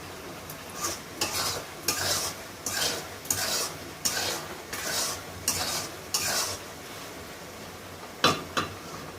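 A spatula stirring and scraping through vegetables, nuts and melting sugar frying in oil in a pan, with a faint sizzle underneath. There are about nine strokes in a steady rhythm, then two sharp knocks near the end.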